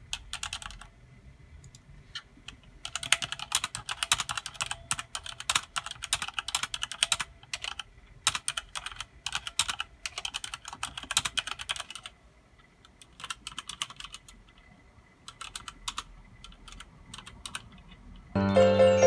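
Typing on a Motospeed GK82 mechanical keyboard with Outemu Red switches. There is a long fast run of keystrokes, then a pause, then scattered single key presses. Music comes back in near the end.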